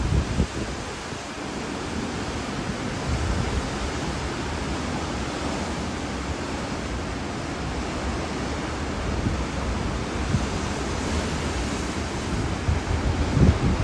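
Hurricane-force wind blowing in a steady roar, with gusts buffeting the microphone, the strongest near the end.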